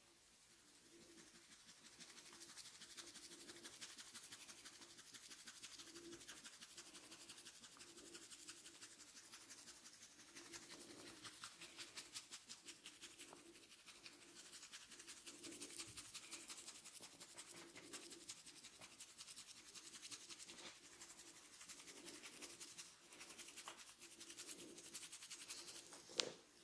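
Fingers rubbing and scratching through hair and scalp during a head massage: a faint, rhythmic rustle of about three strokes a second, with one sharp click near the end.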